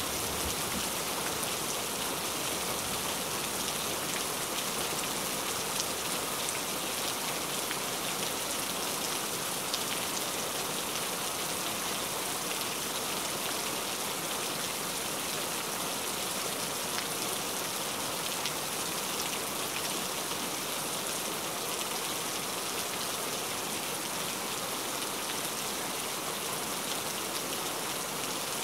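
Heavy rain falling steadily: an even, unbroken hiss of countless drops.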